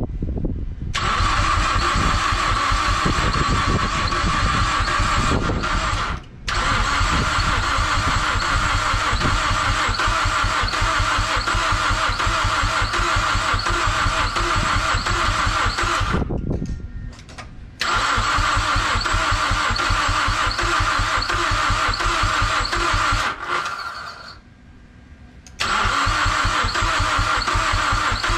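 Mazdaspeed6's turbocharged 2.3-litre four-cylinder being cranked over on the starter in four long bursts separated by short pauses, a steady starter whine over the even chug of the compression strokes. The engine is not starting: a no-start that the owner is still chasing, now and then trying to kick.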